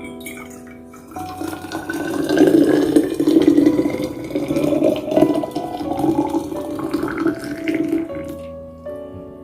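Hot water poured from an electric kettle into a flask. The pour starts about a second in and its pitch rises steadily as the flask fills, stopping shortly before the end, over soft piano background music.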